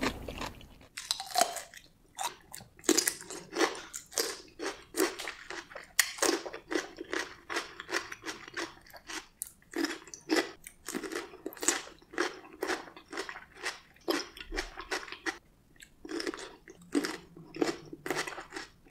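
Close-miked crunching of whole pickles being bitten and chewed: a rapid run of crunches, with a short lull about three-quarters of the way through.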